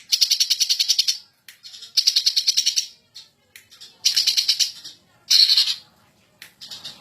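Green leafbird (cucak ijo) singing in fast rattling trills, the 'ngentrok' style: four bursts of rapid repeated high notes, each about a second long or shorter, with brief single notes in the gaps.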